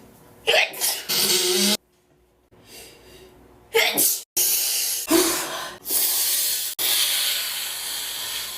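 A person sneezing again and again in an allergic rhinitis attack, several sneezes in quick succession. Each starts with a short falling voiced onset, and some are drawn out into long hissing blasts.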